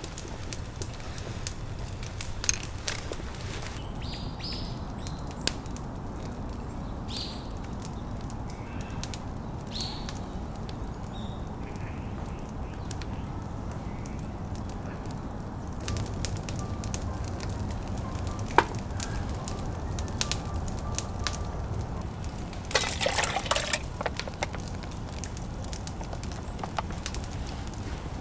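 Wood campfire crackling, with scattered pops and clicks over a low steady rumble. A few short bird chirps come in the first third, and a brief louder burst of noise comes about three-quarters of the way through.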